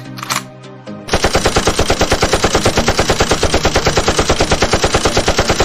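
Machine-gun fire sound effect: a steady, rapid burst of shots at about nine a second, starting about a second in.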